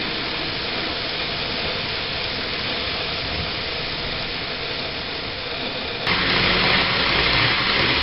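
An N-gauge model train running along its track, a steady rolling hiss as its blue sleeper coaches pass. About six seconds in the sound cuts abruptly to a louder, steadier hum with more low rumble.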